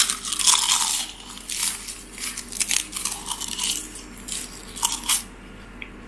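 Close-up crunching of a crisp oven-baked kale chip being bitten and chewed, with loud brittle crackles at first that thin out and stop about five seconds in.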